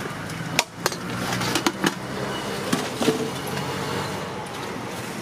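Steady roadside traffic noise with a handful of sharp clicks and knocks in the first three seconds.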